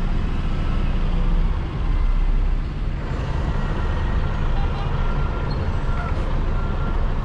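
Freightliner Cascadia semi truck's diesel engine running at low speed while the truck reverses, heard from inside the cab. In the second half a faint reversing beeper repeats about twice a second.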